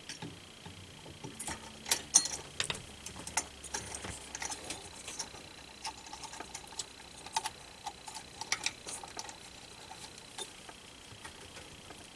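Small, irregular clicks and taps of a CPU cooler fan being fitted back onto a PC's motherboard and secured, the sharpest a pair of clicks about two seconds in.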